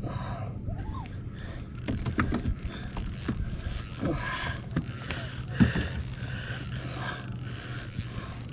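Spinning fishing reel being cranked as a fish is reeled in, its gears whirring with scattered sharp clicks.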